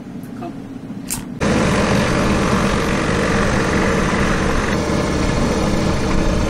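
Outboard motor of an inflatable dinghy running steadily under way, with wind and water noise. It cuts in abruptly about a second and a half in, after a short quiet stretch.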